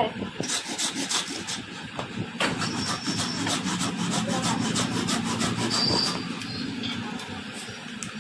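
A steel blade scraping along a wooden stick by hand in quick, repeated strokes, shaving the wood down.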